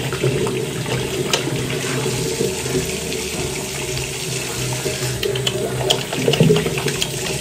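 Tap water running steadily into a bathroom sink while soapy hands rub a bar of soap into lather under it, with a few small clicks.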